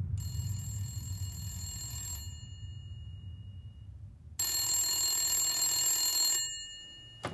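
Telephone ringing twice, each ring about two seconds of steady tones with a pause between, then a short click near the end.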